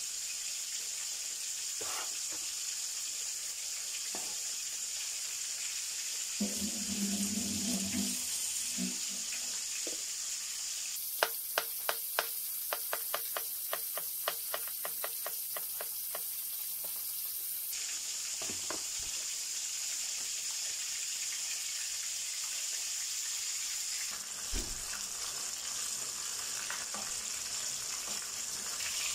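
Cleaver chopping ginger on a plastic cutting board: a quick, even run of knocks, about three or four a second for some seven seconds, starting about eleven seconds in, over a steady hiss of oil sizzling.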